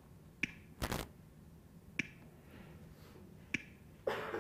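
Short sharp clicks from the communication software's auto-scan, one about every second and a half as the scan steps at its 1.5-second rate, with a duller knock about a second in and a brief rustle near the end.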